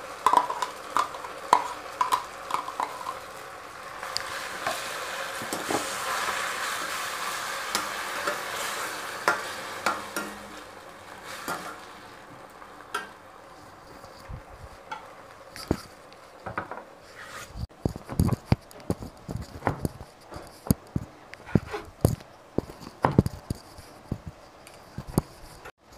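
A spatula clicking and scraping against a steel pan as crushed tomato is stirred into onions frying in hot oil, with a sizzle that swells for several seconds and then fades. From about two-thirds of the way in, a quick irregular run of dull knocks of a knife cutting parottas on a wooden board.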